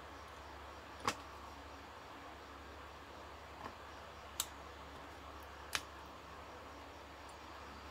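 A few sharp clicks of a small screwdriver working the screws in the plastic housing of a Bluetooth speaker, three clear ones and a fainter one, over a steady low hum.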